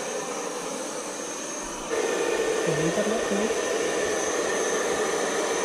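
Handheld electric hair dryer blowing steadily: a rush of air with a thin high whine. It jumps louder about two seconds in.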